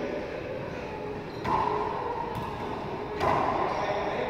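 Two sharp smacks of a racquetball, about a second and a half apart, the second the louder, each followed by a short ring in the enclosed court.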